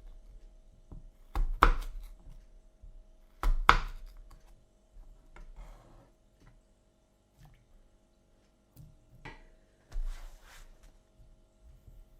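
A kitchen knife knocking on a cutting board in a few separate cuts about two seconds apart, with softer scraping sounds between them.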